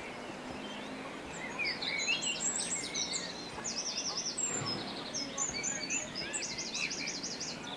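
Birdsong: a mix of short chirps and fast, high trills, busiest from about a second and a half in, over steady background noise.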